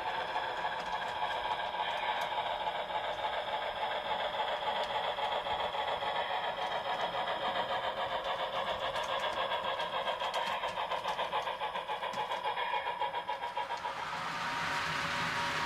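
Sound decoder of an HO scale Southern Pacific cab-forward steam locomotive model playing a rhythmic exhaust chuff, the beats quickening as the engine moves off. About fourteen seconds in the chuffing gives way to a steady hiss.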